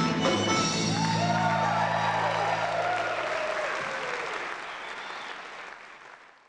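A live acoustic band's final chord ringing out under audience applause. The chord dies away about four seconds in, and the applause fades out near the end.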